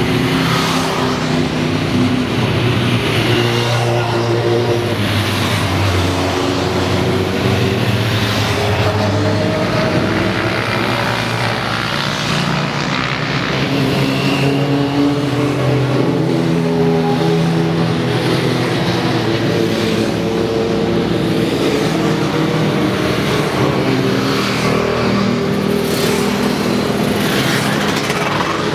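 Several supersport motorcycles with open exhausts running at low revs, riding slowly in a group. Their engines overlap in a steady drone.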